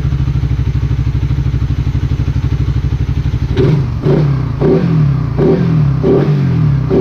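Suzuki Satria F150's single-cylinder 150 cc engine, breathing through a pod air filter, idling steadily and then blipped about five times in quick succession from about halfway, each rev rising sharply and dropping back.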